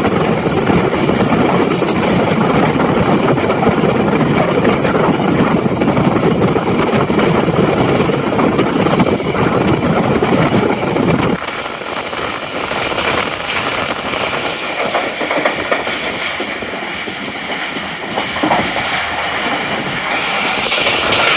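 Passenger train running at speed, heard from on board as a steady rumble and clatter of the carriage on the track. About eleven seconds in the deep rumble drops away suddenly, leaving a quieter, thinner running noise.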